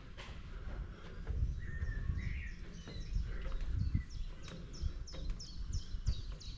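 Songbirds singing, with one bird repeating a short, high, falling note about three times a second from about midway on, over a low rumble with a few dull thumps.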